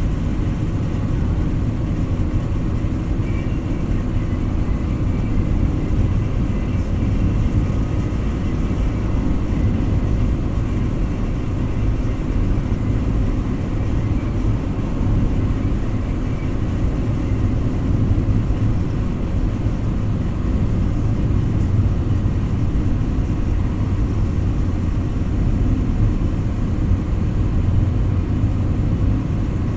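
Steady low rumble of a moving car, engine and tyre noise heard from inside the cabin while driving at an even speed.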